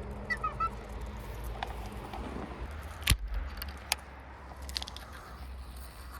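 A bird gives a short call of a few quick notes just after the start. Scattered sharp clicks and knocks follow, the loudest about three seconds in, over a steady low rumble.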